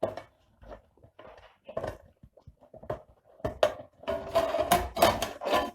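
Metal UPS cabinet being handled and opened: scattered clicks and knocks, then a denser run of metallic clattering and scraping over the last two seconds or so.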